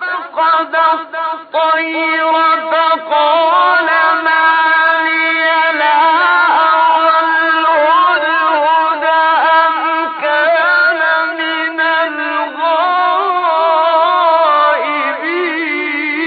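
A male reciter chanting the Quran solo, unaccompanied. A few short, clipped syllables give way after about a second and a half to long, ornamented held notes that bend and waver in pitch. The recording is old and dull-toned, with no treble.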